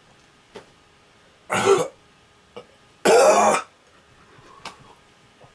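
A man coughing and clearing his throat twice, a short harsh cough and then a longer, louder one about a second and a half later, set off by the burn of a capsaicin-extract hot sauce in his mouth and throat.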